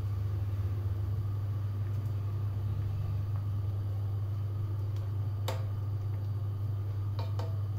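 Steady low hum throughout, with a few light clinks of a metal spoon against the pan while batter is spread: one about five and a half seconds in and two more near the end.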